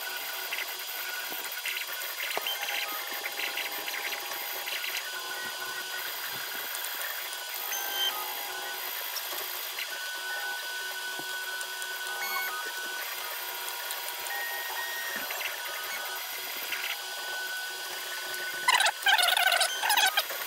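Creality CR-10S 3D printer running with a steady fan hum and whine. Its stepper motors move the print head between bed-levelling points in short pitched runs, with the loudest, pitch-bending run near the end.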